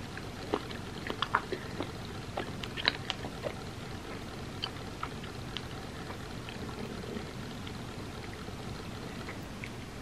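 Close-miked wet chewing and mouth clicks from eating mochi ice cream coated in red bean porridge. The clicks come thick in the first few seconds and thin out after, over a steady hiss.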